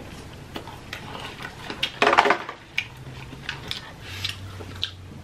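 Close-miked eating sounds from a mukbang: chewing and wet mouth clicks, with light clicks and rustles as fast food is handled on a tray, and a louder burst about two seconds in.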